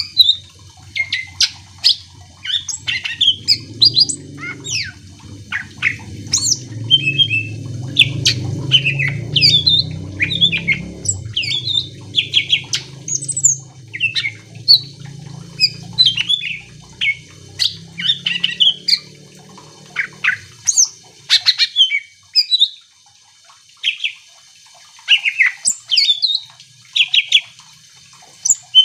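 Green leafbird (cucak ijo) singing persistently: a rapid, varied run of sweeping whistled and chattering notes. A low rumble runs underneath for the first two-thirds and then stops.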